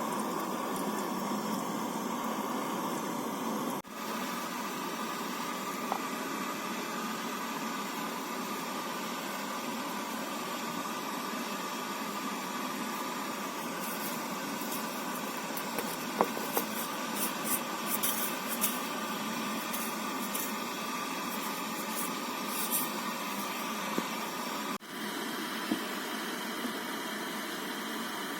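Strong wind blowing steadily, a continuous rushing noise, with a few light ticks about halfway through.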